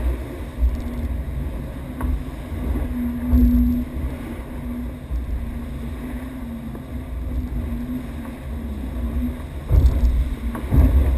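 IMOCA 60 racing yacht sailing fast: water rushing along the hull and wind buffeting the deck camera, over a steady low hum. The noise swells near the end as spray breaks over the side.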